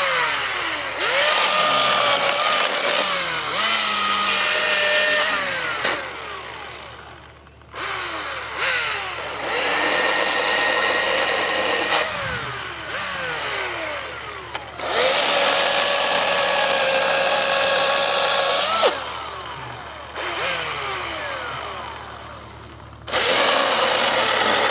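Husqvarna Power Axe 350i battery-powered chainsaw with an 18-inch bar, its electric motor and chain whining up in bursts of the trigger, about five times, then winding down in pitch between them. The longest burst comes a little past the middle.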